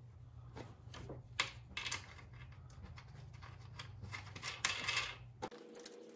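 Faint metallic clicks and light scraping as the nuts are threaded by hand onto the studs of a new front strut's top mount. There is a couple of sharp clicks early and a small cluster near the end.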